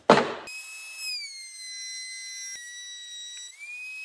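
Table-mounted router running with a high whine, its pitch dropping about a second in as the bit bears into the wooden block and rising again near the end as the block comes off the bit. A short loud burst of noise comes just before the whine.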